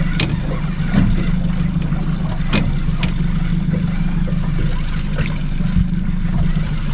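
A small fishing boat's engine idling steadily, with a few sharp ticks over it.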